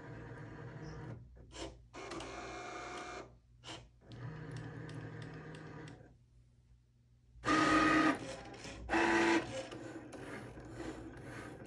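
Cricut Maker 3 cutting machine's motors running in stop-start bursts as the carriage travels and the mat feeds. It is reading the registration marks and making the test cuts of a Print Then Cut calibration. Louder, whining bursts come about 7.5 s and 9 s in.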